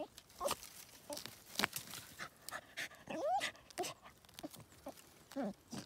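Border terrier panting and whining while it tears at splintered tree roots and digs, with many sharp cracks and scrapes of wood and soil. A short rising whine comes about three seconds in and a falling one near the end.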